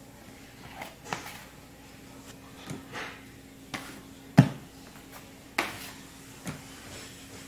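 Bread dough being divided with a plastic bench scraper and weighed: a series of soft thumps and taps as the scraper cuts through and dough portions are set down on a digital scale, the heaviest thump about four and a half seconds in. A faint steady low hum runs underneath.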